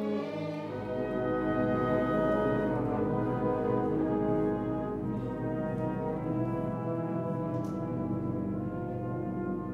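Symphony orchestra playing slow, held chords, with French horns and brass prominent over the strings. A low bass note enters beneath the chords about a second in.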